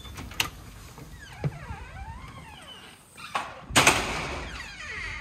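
Front door being opened: sharp clicks from the lock and latch, a wavering creak from the hinges, then a loud bang about three and a half seconds in that rings on for about a second as a door swings shut.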